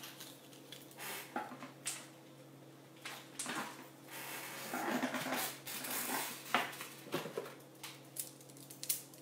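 Handling noise: scattered rustling with light clicks and clinks, busiest about halfway through, over a steady low electrical hum.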